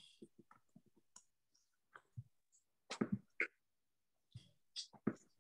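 Faint, scattered clicks and short taps, a few of them louder about three and five seconds in.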